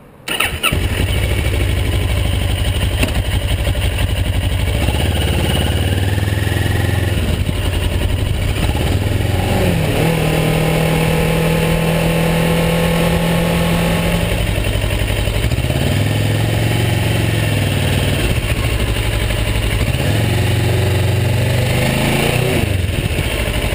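Motorcycle engine running on the road, its pitch rising and settling several times with throttle and gear changes, under heavy wind noise on the microphone.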